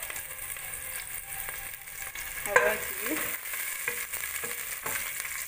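Sliced onions sizzling in hot oil in a stainless steel pot, stirred with a wooden spoon, with a brief clatter about halfway through.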